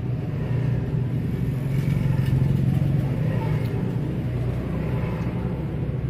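Road traffic passing: a motor vehicle's engine drone that grows louder about two seconds in and then fades.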